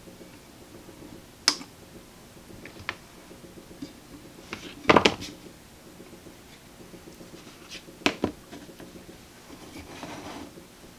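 Small hand tools and parts being handled on a workbench during capacitor replacement: a few sharp clicks and taps, the loudest a short cluster about halfway through, over a faint steady hum.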